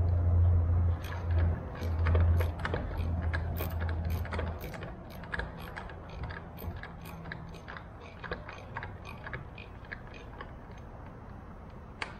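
Hand socket ratchet clicking in quick, irregular runs as a nut is tightened on the bolt of a tailwheel steering arm, with small metal taps between strokes. A low hum sounds along with it for the first few seconds.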